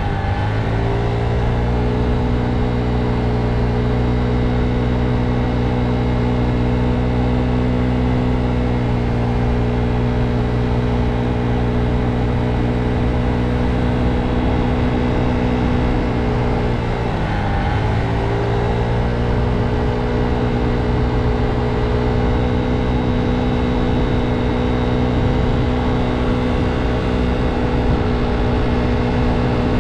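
Motor scooter engine running at a steady cruising speed. Its note drops and climbs back twice, right at the start and again a little past halfway, as the scooter slows and picks up speed again.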